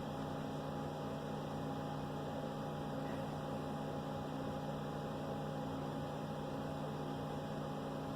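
Steady electrical hum with a faint hiss, a few constant tones sitting under it.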